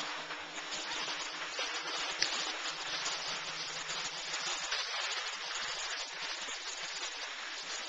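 Steady scraping hiss of sliding down a ski run over soft, slushy spring snow.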